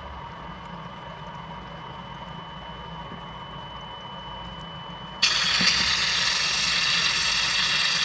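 Steady machinery hum with a faint high tone. About five seconds in, a loud hiss of compressed air starts suddenly and keeps going as air escapes from a fitting on a FIAC air dryer.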